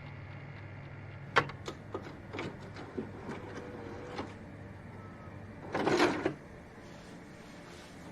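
A series of light clicks and knocks, then a short burst of noise about six seconds in, over a low steady hum that drops away after the burst.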